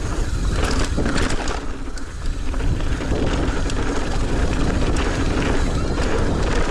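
Mountain bike riding fast down a dirt trail: wind rushing over the microphone, tyres running on dirt and the bike rattling, with a brief lull about two seconds in.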